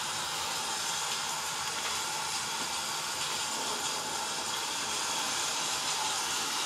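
Steady rushing hiss with no breaks, from a storm sound recording.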